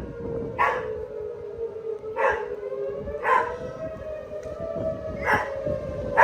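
Outdoor tornado warning siren sounding a steady low tone that drifts slowly up and down in pitch. A dog barks about five times over it.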